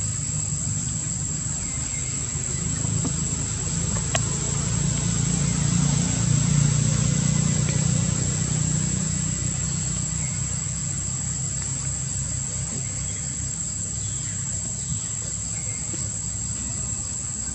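Insects droning in a steady, high-pitched, even buzz, over a low rumble that swells about five seconds in and fades a few seconds later; a single click about four seconds in.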